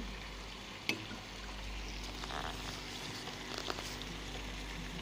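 Cooking oil bubbling and sizzling gently in a pan on low heat, with a sharp click about a second in and a few fainter clicks later.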